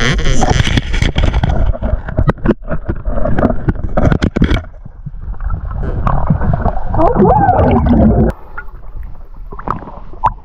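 Muffled underwater rumble and bubbling with sharp knocks and clicks, heard through a camera held underwater while a diver grabs a painted crayfish under coral. About eight seconds in, the camera breaks the surface and the sound drops to quieter water splashing.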